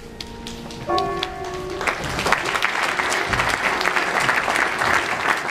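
Audience applauding a stage musical number. A few scattered claps come first, then a short held chord from the music about a second in, then full, dense applause from about two seconds in.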